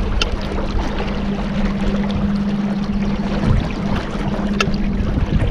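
Small boat's motor running with a steady hum, under a constant wash of water and wind noise. Two short clicks, one just after the start and one near the end.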